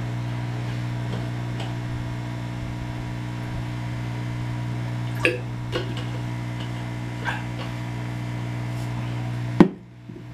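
Steady low electrical hum, with a few soft gulping sounds as a man swallows water. A sharp click comes near the end, after which the hum is much quieter.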